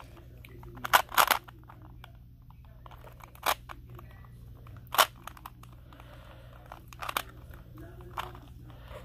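A plastic 3x3 Rubik's Cube being turned by hand: irregular clicks and clacks as the layers are twisted, a few louder than the rest, the loudest about a second in and again about five seconds in.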